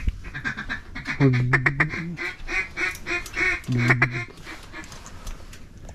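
Duck quacking: a fast run of loud, mallard-type quacks in the first two seconds, softer quacks after, and another loud quack about four seconds in.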